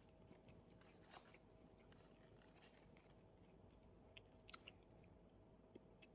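Near silence: room tone with a faint steady hum and a few soft clicks, about a second in and several more around four to five seconds in.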